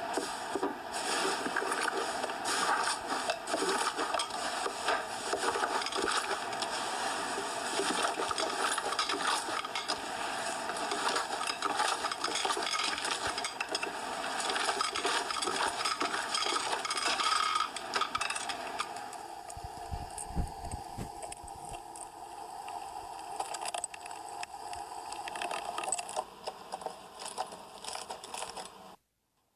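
Hands squeezing and working slime close to the microphone: a dense run of small sticky clicks and crackles. It turns duller and a little quieter about two-thirds of the way through, and cuts off just before the end.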